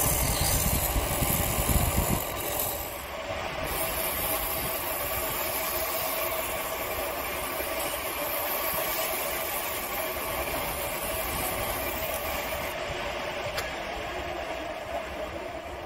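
Wood lathe running, with a turning chisel cutting the spinning wood at the start. After that the lathe motor hums steadily while sandpaper hisses against the turning wood, and the hiss stops about three-quarters of the way through.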